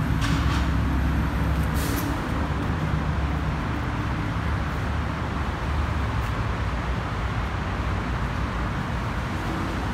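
Steady low rumble of a running vehicle engine with road traffic.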